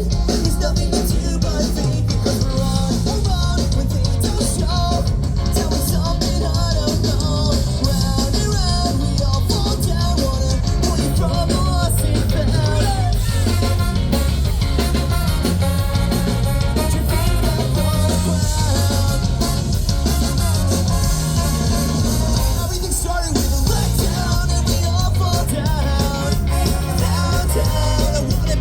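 Pop-punk band playing live: loud distorted guitars, bass and a driving drum kit, with a singer's vocal over it.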